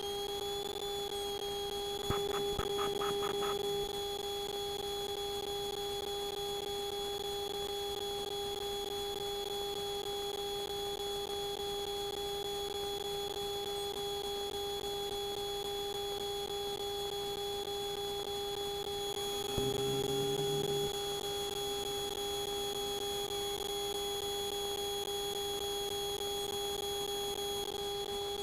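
Steady high-pitched electrical whine over a lower hum on a Piper Lance's cockpit intercom audio during takeoff at full power. The top tone climbs briefly, then holds steady. Two short louder sounds break in, a rapid buzzing rattle about two seconds in and a brief low murmur at around twenty seconds.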